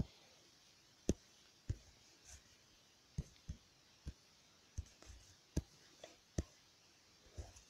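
Fingertips tapping and pressing on a phone's touchscreen, picked up through the phone's own microphone: about a dozen faint, irregular taps.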